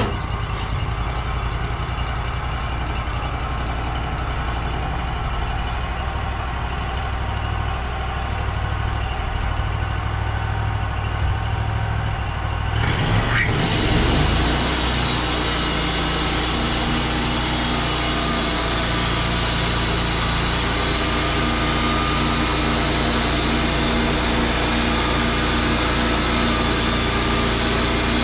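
Sawmill engine running steadily, then about thirteen seconds in the sound turns louder, with a steady cutting hiss over the engine as the blade goes through the pine log.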